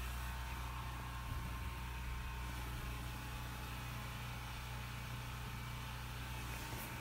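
Steady low machine hum with a constant hiss over it.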